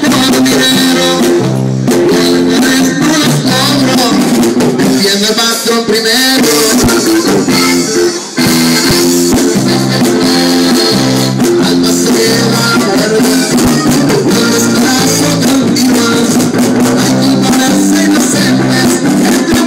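Live norteño-style band playing: button accordion carrying the melody over guitar, electric bass and drum kit, with a brief break about eight seconds in.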